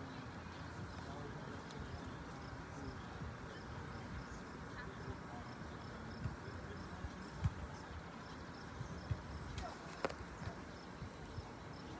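An insect chirping faintly and steadily, about three chirps a second, over a low rumble of outdoor ambience. A few dull thumps come in the second half.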